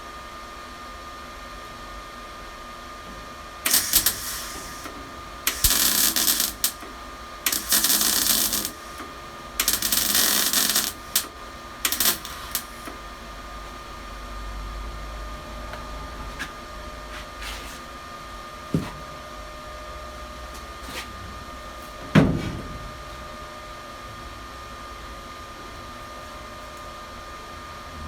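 Welder tacking a steel body panel on a Classic Mini: about six short crackling bursts of roughly a second each in the first half, over a faint steady hum. Later come a sharp knock and then a louder metallic clang that rings briefly.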